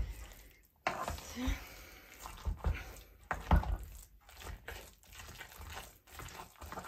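Hand potato masher squashing boiled potatoes with milk and butter in a saucepan: irregular squelching strokes with dull thumps against the pan bottom.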